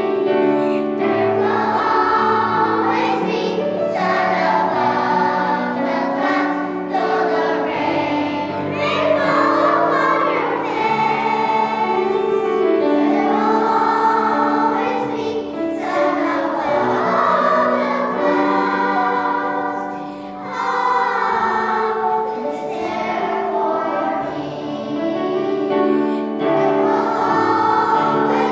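Children's choir singing, many young voices holding long sung phrases, with a brief drop in loudness about twenty seconds in.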